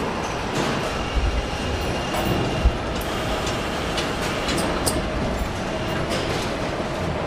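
Car assembly hall noise: a steady mechanical din from the production line, with faint steady whines, scattered light clicks and a few low thumps.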